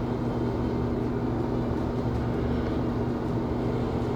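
Steady background hum with a constant low tone, like a fan or air-conditioning unit running in the room.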